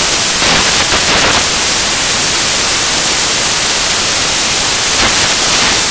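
Loud, steady static hiss with no speech in it, breaking off abruptly at the end: a corrupted, faulty audio track rather than any sound in the room.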